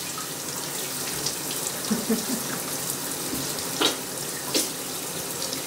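Shower running steadily, water spraying and splashing onto a wet capuchin monkey in the tub, with a couple of brief sharp splashes about four seconds in.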